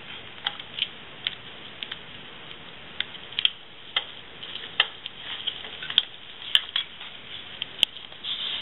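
Gloved hands working in the wet tissue of a preserved fetal pig: irregular small sharp clicks and squelches, about a dozen scattered through.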